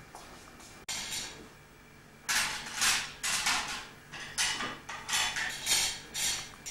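Dishes and cutlery clattering and scraping in a kitchen: a run of short scrapes, about two a second, starting a little over two seconds in.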